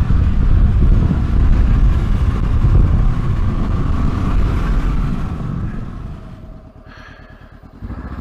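Honda CB500X parallel-twin motorcycle being ridden, its engine running loudly under a heavy low rumble. About six seconds in it eases off and goes much quieter to a low, even beat, then picks up again near the end.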